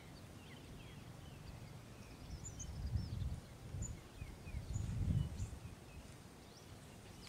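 Faint small birds chirping, over low rumbling noise that swells twice, about three and five seconds in.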